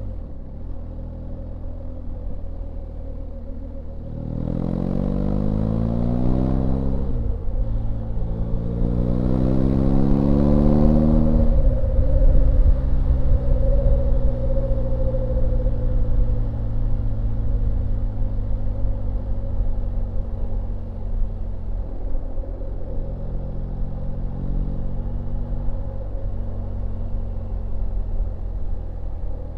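BMW R1250GS Rallye's boxer twin idling, then accelerating through a gear change with a short dip in revs between the two rising pulls, wind rushing over the bike. About twelve seconds in the throttle shuts and the revs fall away steadily as the bike brakes down from speed, settling back to a low idle near the end.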